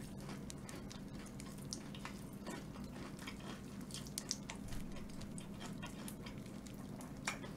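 Carbonated popping candy crackling in the mouth as fried chicken sprinkled with it is eaten: faint, irregular tiny pops, over a faint steady hum.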